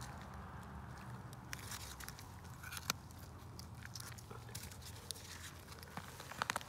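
Scissors snipping and crunching through a dead piglet's chest and ribs: scattered sharp crunching clicks, the sharpest about three seconds in and a quick run of them near the end.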